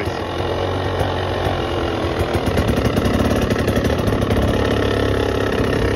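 Two-stroke dirt bike engine, fitted with an added flywheel weight, idling steadily as it warms up, a little louder from about three seconds in.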